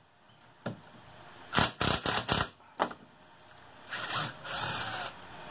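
A cordless drill with a 10 mm socket backs out the bolts of a Honda Talon's factory skid plate. A handful of sharp clicks and knocks come in the first three seconds, then two short runs of the drill near the end.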